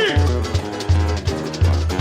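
Samba school bateria and band playing the samba-enredo live between sung lines: deep surdo bass drums beat a steady pulse about every 0.7 s under dense percussion and instruments.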